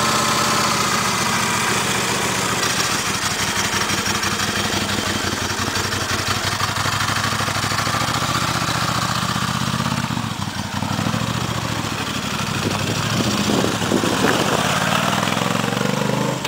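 2000 Moto Guzzi Quota 1100ES's air-cooled V-twin, fed by a Weber 38 DGAS carburettor conversion, idling steadily just after starting. About ten seconds in it is revved and the bike pulls away, the engine note rising and falling as it rides off.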